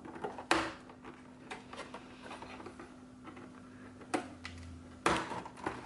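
Scissors snipping through toy-box packaging: a few sharp snips, the loudest about half a second in and again near the end, with softer clicks and rustles of cardboard and plastic being handled in between.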